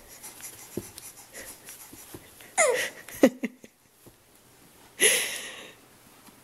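A baby's breathy vocal sounds while kicking. A short squeal falls in pitch about two and a half seconds in, a sharp click follows, and a breathy huff comes about five seconds in.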